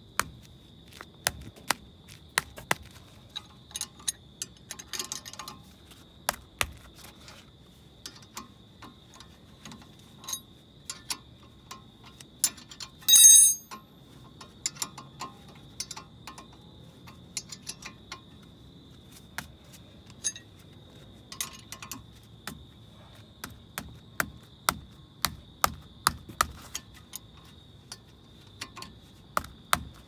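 Hand ratchet clicking in irregular runs and metal tools clinking while a 14 mm brake caliper bolt is worked on, with one louder ringing metal clink about 13 seconds in. A faint steady high whine sits underneath.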